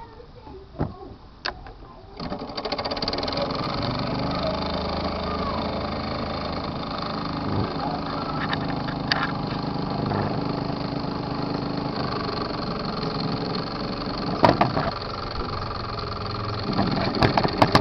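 Small Meccano live-steam model engine starting up about two seconds in, then running steadily, with a few sharp clicks later on. The owner says it was not running well that day.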